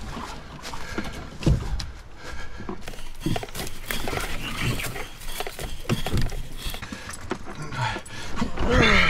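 Footsteps and the knocks and rustle of a canoe carried overhead on a portage trail, heard close up: irregular dull thuds about once or twice a second. A short voice-like glide comes near the end.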